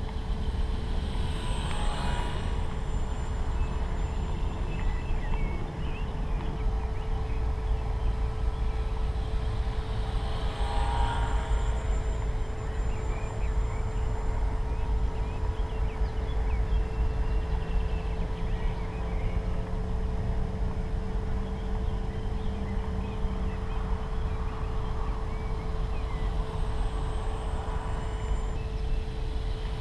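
Radio-controlled model airplane's propeller and motor buzzing as it flies low passes, swelling a few times as it comes close. Heavy wind rumble on the microphone throughout.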